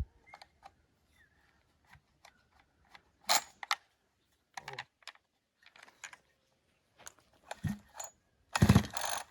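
Scattered light clicks and knocks from handling a rebuilt Husqvarna 353 chainsaw, then near the end one loud, rasping pull of its recoil starter cord as it is tried for a first start.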